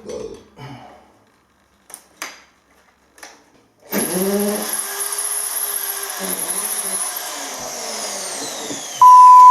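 Light clicks and knocks of handling, then a corded mains hammer drill starts about four seconds in, runs steadily, and winds down with falling pitch after the trigger is let go; its keyless chuck is not holding the bit properly. Near the end a loud, steady one-tone censor bleep comes in.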